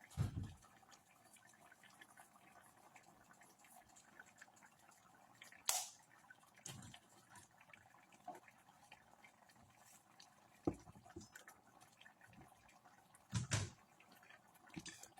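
Chicken and cream sauce simmering faintly in the pan, a soft steady hiss with scattered single pops and a few light knocks.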